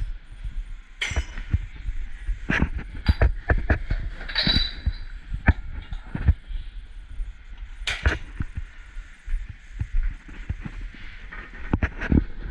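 Dishware being handled in a commercial dish pit: an irregular clatter of knocks and clicks with a few ringing clinks, over a steady low hum.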